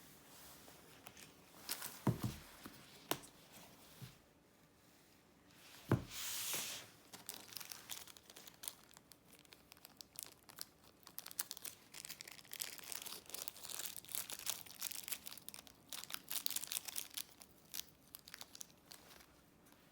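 Packaging being handled and torn open: a few knocks in the first seconds, a louder thump about six seconds in, then a long stretch of quick crinkling and rustling.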